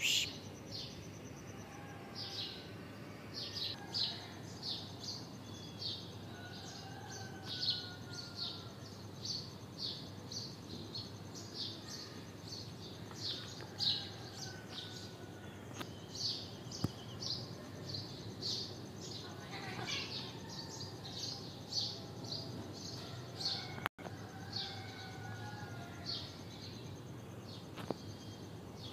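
Birds chirping outdoors: a steady stream of short, high chirps, several a second, over a low background hum, with fainter drawn-out whistles from further birds.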